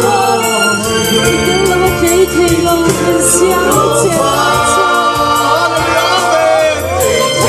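Group of voices singing a Christian worship song together, amplified through PA speakers over sustained low instrumental backing notes.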